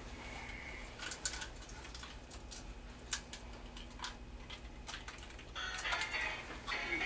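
A lull in the music filled with scattered light clicks and taps over a faint steady hum; the music comes back in about five and a half seconds in.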